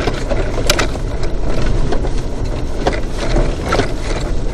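Car driving slowly over a rough dirt track, heard inside the cabin: a steady low rumble of tyres and suspension, with a few short rattles and knocks from the bumps.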